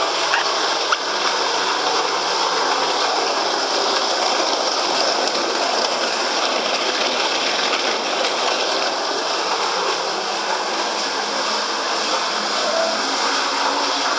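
Waterfall water rushing and splashing in a steady, unbroken stream, with one small click about a second in.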